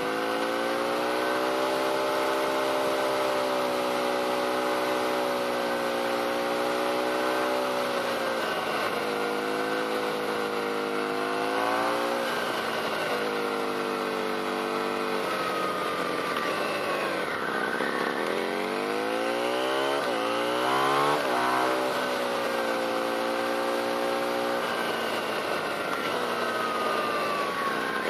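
Motorcycle engine running at a steady cruising speed, with road and wind noise. About two-thirds of the way through the engine note falls off, then climbs again in a few quick rises as it is shifted up through the gears, and settles back to a steady pitch.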